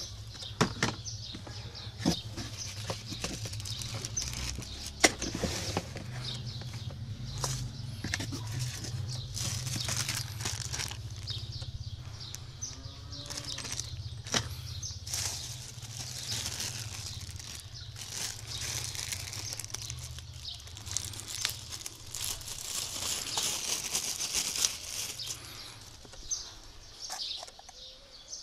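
Hands handling a plastic backpack sprayer: irregular clicks, knocks and rustling as its parts are moved about, with birds chirping in the background.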